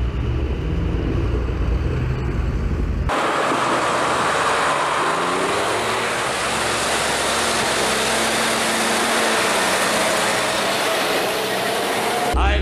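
Modern farm tractors driving past one after another, their diesel engines running under load with tyre noise on the road. About three seconds in the sound changes abruptly from a deep, distant rumble to louder, closer engine and tyre noise as the tractors pass close by, with the engine notes rising and falling.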